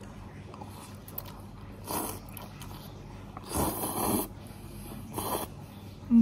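Noodles being slurped during eating: three noisy slurps, the middle one the longest. A short, loud vocal 'mm' comes right at the end.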